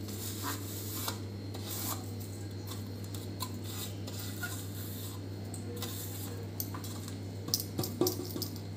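Fingers rubbing and scraping spice powder across a plastic plate, with a few sharper clicks near the end as the plate is tipped against a steel bowl. A steady low hum runs underneath.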